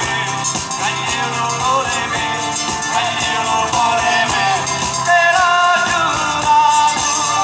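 Live southern Italian taranta (tarantella) music: accordion and acoustic guitars playing a melody over a steady tambourine beat.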